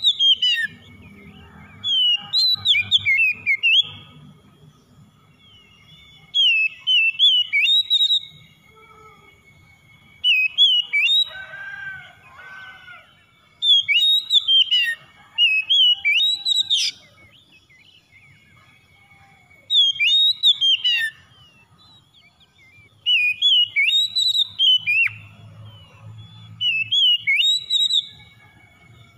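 Oriental magpie-robin singing: short bursts of loud, quick whistled phrases that leap up and down, about nine of them spaced a few seconds apart, with a softer, lower warble between two of them.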